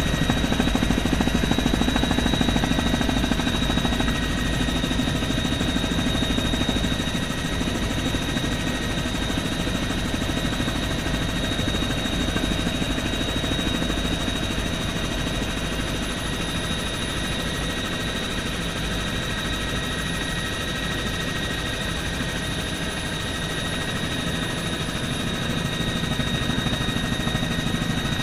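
Bell helicopter in flight, heard from inside the cabin: steady rotor and turbine engine noise with a high, even whine.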